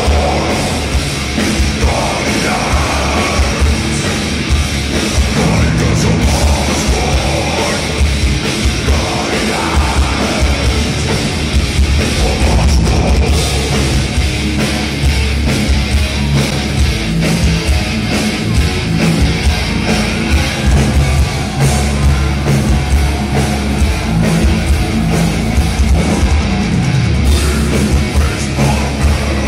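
Melodic death metal band playing live: distorted guitars, bass and drums with growled vocals, heard loud from the crowd in a concert hall.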